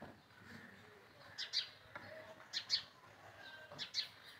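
A small bird chirping: three pairs of short, high chirps, a little over a second apart.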